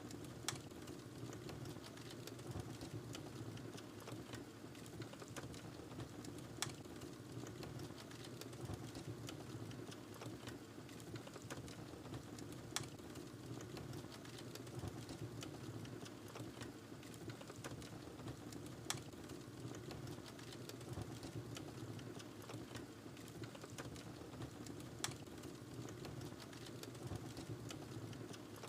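Wood fire burning in a fireplace: a steady low rush of flame with light crackling throughout, and a sharper pop about every six seconds.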